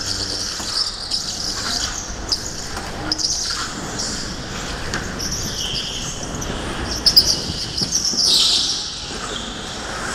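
Go-kart tyres squealing in short chirps and longer squeals while cornering on a smooth indoor track floor, over a steady low rumble of the kart running.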